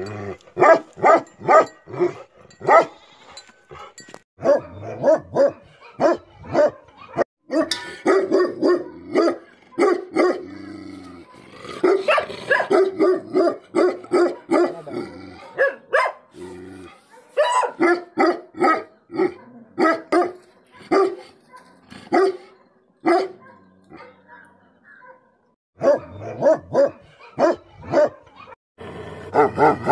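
Tibetan Mastiffs barking aggressively in fast runs of about three barks a second, broken by brief pauses.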